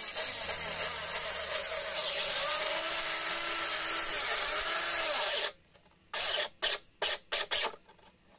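Corded handheld circular saw cutting through 18 mm plywood, its motor pitch dipping and wavering under load, then cutting off about five and a half seconds in. A few short bursts of noise follow.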